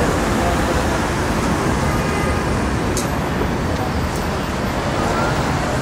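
Steady city traffic noise: a continuous road rumble with no single vehicle standing out, and a light click about three seconds in.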